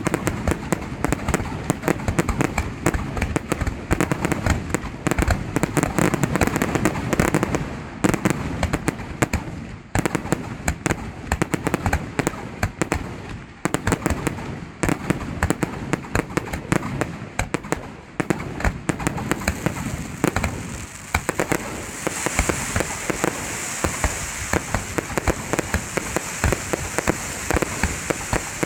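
Fireworks going off in a dense, rapid barrage of bangs and crackles. From about two-thirds of the way through, a steady high crackling hiss sets in under the bangs.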